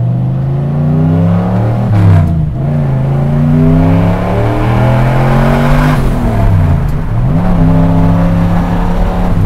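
Turbocharged 363 cubic-inch small-block Ford V8 in a 1970 F100 pickup pulling hard under acceleration, heard from inside the cab. Its pitch climbs, then drops abruptly about two seconds in and again around six seconds as it shifts up, with a short hiss at the first shift, before settling into a steady cruise.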